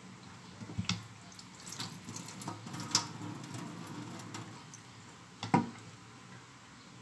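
Raw meat being rinsed and squeezed by hand in a metal pan at a kitchen sink: wet squishing and splashing with scattered clicks. One louder knock of the pan comes late on.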